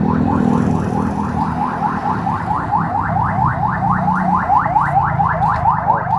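An electronic vehicle alarm siren sounding rapid rising whoops, about five a second, over a low steady hum.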